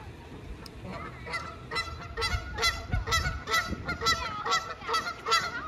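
Geese honking, a rapid run of short honks at about three a second, starting about a second in.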